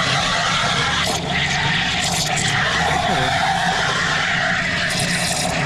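Café espresso machine running, a steady hiss over a low hum.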